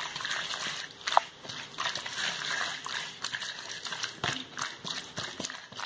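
Masala-coated prawns being mixed by hand in an earthenware pot: wet, squelchy stirring with irregular small clicks and scrapes, one sharper click about a second in.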